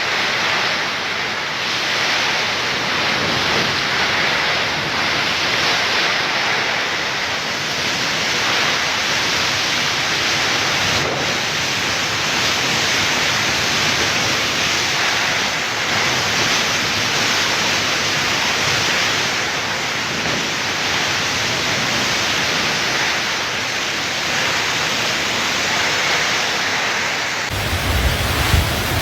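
Steady, even hiss of a heavy typhoon downpour. Near the end it cuts to a low rumble of wind buffeting the microphone.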